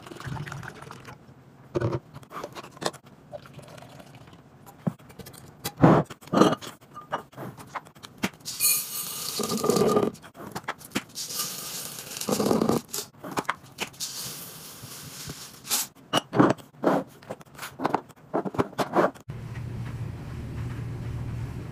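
Laundry products being decanted into glass containers: liquid fabric softener poured into a glass dispenser jar, with caps and lids clicking and knocking against glass, then scent booster beads poured into a glass jar, a long rattling hiss. A steady low hum in the last couple of seconds.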